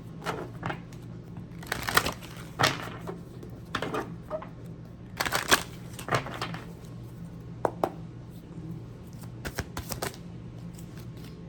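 Tarot cards being handled, with irregular rustles and snaps as cards are shuffled and drawn, over a low steady hum.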